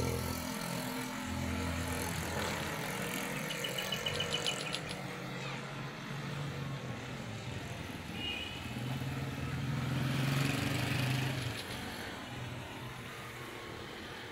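A car engine idling steadily amid street traffic noise. The engine noise swells for a couple of seconds near the 10-second mark. A brief high, rapid clicking sound comes a few seconds in.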